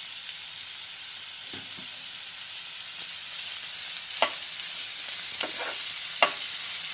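Chopped onion, garlic, ginger and capsicum sizzling in oil in a non-stick frying pan, a steady hiss. A few sharp clicks of a utensil stirring against the pan, the loudest about four and six seconds in.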